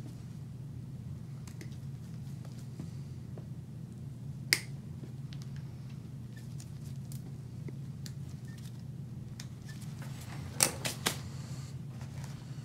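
Steel nail nippers snipping a thickened toenail: faint clipping clicks throughout, a sharp snap about four and a half seconds in, and three quick sharp clicks near the end.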